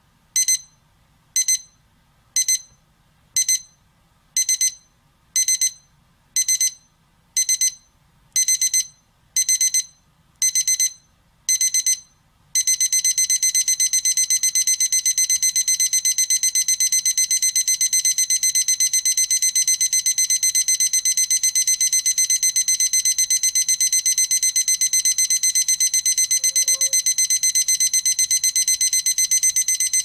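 Electronic alarm clock going off: high-pitched beeps about once a second, each a little longer than the last, then about twelve seconds in it switches to continuous rapid beeping.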